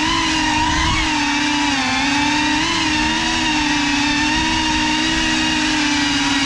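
GEPRC Cinelog35 cinewhoop's brushless motors and ducted propellers whining steadily in flight, the pitch wavering up and down a little with throttle changes.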